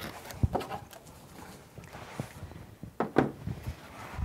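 A cardboard shipping box being opened and handled: short knocks and scrapes of the cardboard flaps and packing, with a louder cluster of knocks about three seconds in as the box is tilted over.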